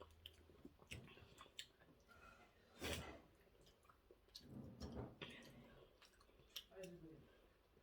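Faint eating sounds: chewing and scattered small clicks, with a short louder noise about three seconds in.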